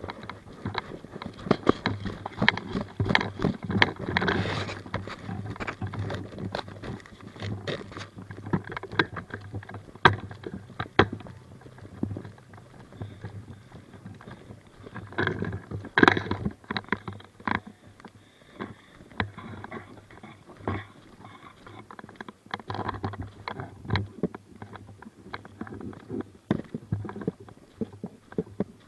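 Footsteps and clothing or gear rustling as a player moves over rough ground, an irregular run of knocks and scuffs under a low hum, with a few sharper clicks about ten, eleven and sixteen seconds in.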